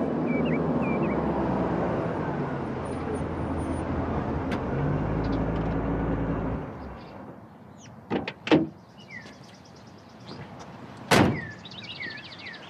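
A car's engine runs and is switched off about seven seconds in. Then come two clicks and a single hard car-door slam near the end, with birds chirping.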